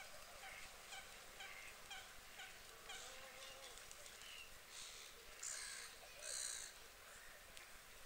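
Lake waterbirds calling faintly: a string of short calls about two a second, then three louder, harsher calls between about five and six and a half seconds in.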